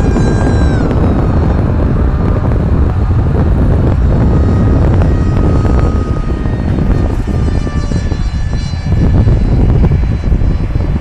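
Electric motor and propeller of a 4-foot RC flying wing, a 700-watt setup on a 4S lipo, whining in flight. Its pitch drops about a second in, and the whine fades and returns as the plane passes. Under it, a loud low rumble of wind on the microphone.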